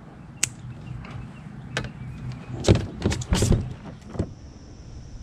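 Scattered sharp clicks and knocks of fishing tackle being handled in a plastic kayak, with a quick cluster of taps a little past the middle, over a low steady hum. About four seconds in, a steady high hiss comes in.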